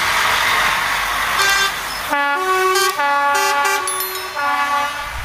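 Truck air horns sounding a multi-tone chord in about five short blasts in quick succession, starting about two seconds in, after a stretch of lorry engine and road noise.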